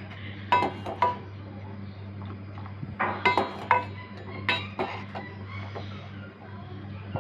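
Spoon and cup clinking together: sharp clinks with a short ring, in three small clusters, over a steady low hum.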